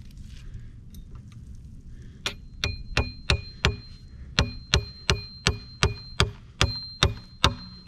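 Hammer driving a nail into a log beam: sharp metal-on-metal blows, about three a second, each with a short ringing ping. The blows start a little over two seconds in, with a brief pause about halfway.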